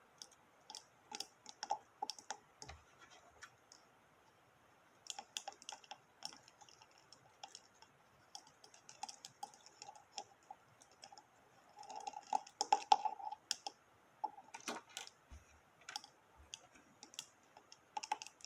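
Small hard-plastic Barrel of Monkeys toy monkeys clicking and clattering against each other as they are hooked together. The clicks are light and irregular, bunching into busier clatters about five seconds in and again around twelve seconds in.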